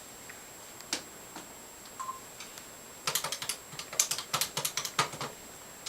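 Phone keypad buttons clicking as a number is dialed: a single click about a second in, then a quick run of clicks over the last three seconds.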